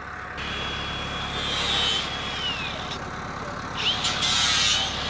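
Working farm machinery running steadily, with a high whine that holds and then slides down in pitch about two and a half seconds in, and another short whine near four seconds.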